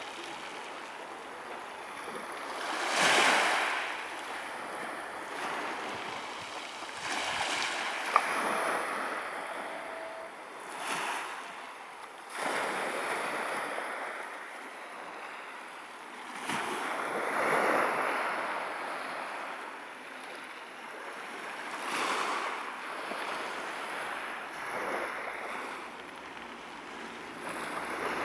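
Small waves washing onto a pebble beach from a calm sea, swelling and fading every few seconds. A single sharp click about eight seconds in.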